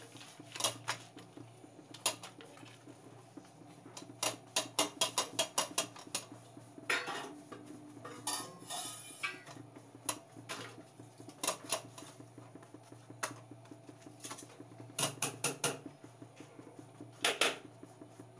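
Light metal clinks and taps on a stainless-steel cooking pot of chopped saag greens, some single and some in quick runs. There is a short scraping rustle about eight seconds in, and a steady low hum underneath.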